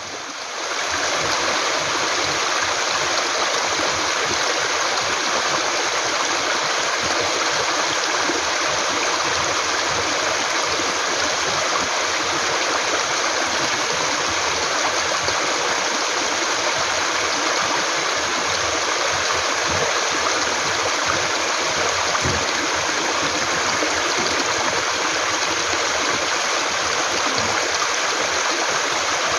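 Mountain valley stream flowing with a constant, even water noise; it fades in over the first second and then holds steady.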